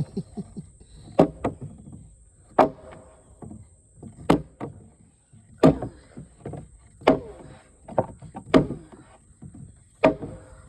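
Heavy timber-framing mallet striking timber in a slow, even rhythm: about seven hard knocks, one roughly every second and a half, each with a short ring.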